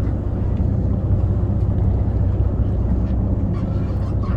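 Sportfishing boat's engines running with a steady low rumble, mixed with wind noise on the microphone.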